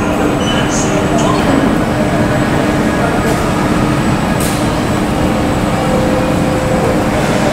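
Steady jet aircraft engine noise on an airport apron: a dense rumble with a constant low hum and a thin high whine.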